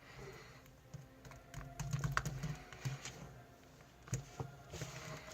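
Slime being worked by hand: irregular small clicks and squishes as it is pressed and poked.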